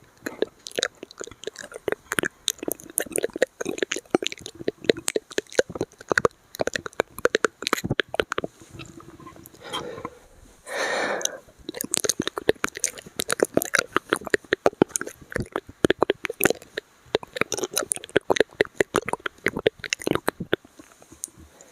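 Close-miked ASMR mouth sounds: a dense run of rapid wet clicks and smacks, with one short breathy burst about halfway through.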